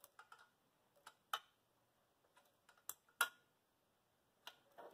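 A handful of faint, sharp metal clicks, the loudest about three seconds in, as a wrench snugs up a compression fitting on an oil pressure gauge line.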